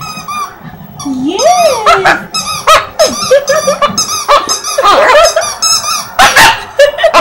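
Puppy chewing a rubber squeaky ball toy, squeezing out many short, high squeaks in quick succession, with one longer rising-and-falling squeal between one and two seconds in.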